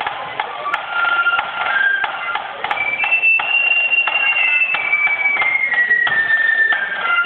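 Flute band playing: high flutes carry a melody, holding one long high note in the middle, over the steady tapping of snare drums.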